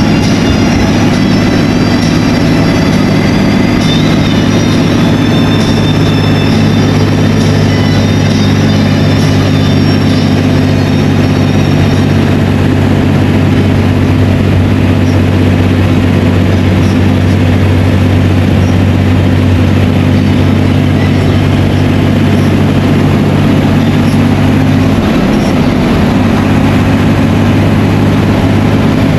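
Diesel engine of an old Marcopolo Viaggio coach running steadily at road speed, heard from inside the cabin with road noise. Its note drops slightly about 25 seconds in.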